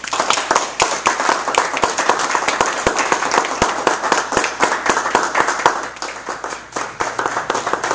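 Audience applauding, with many dense, overlapping hand claps.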